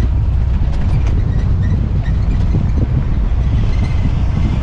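Ford Ranchero pickup coasting downhill on a mountain road: a steady low rumble of the moving vehicle, road and wind noise, with a few faint ticks.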